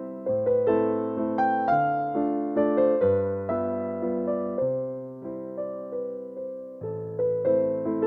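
Background music: a gentle solo piano or electric piano piece, notes struck about twice a second and fading between strikes.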